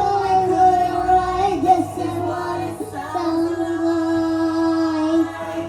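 A child singing a few long, steady held notes, with a short pitch wobble in the middle.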